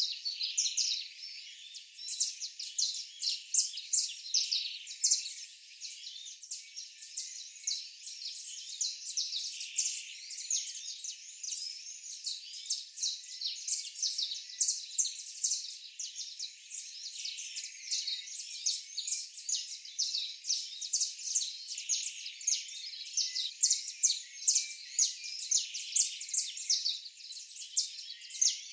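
Small birds chirping continuously in a busy chorus of quick, high chirps, several a second.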